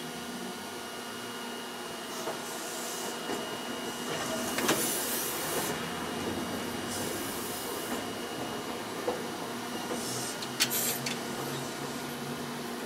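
Fukui Railway 770-series articulated tram running slowly through a curving junction, heard from inside the cab: a steady running hum with a faint high tone, several bursts of high hiss, and a few sharp clicks as the wheels cross the points.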